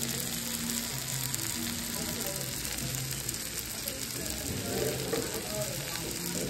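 Chicken fajitas sizzling on a hot cast-iron fajita skillet: a steady, dense crackle.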